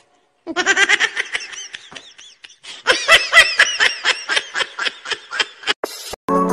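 A man laughing hard in a long run of rapid ha-ha pulses, starting about half a second in and growing louder around the middle.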